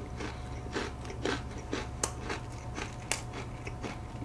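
Close-miked chewing of a crunchy cookie: a steady run of crisp crunches, about two or three a second, with two sharper cracks about two and three seconds in.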